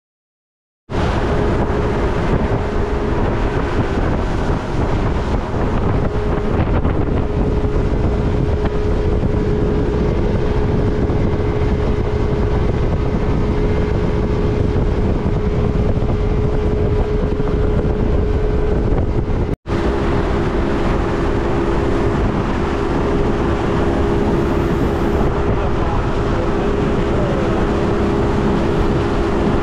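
Motorboat engine running steadily underway, a loud even drone with rushing wind and water noise. It starts about a second in, cuts out for an instant near the middle, and then comes back with a slightly different engine note.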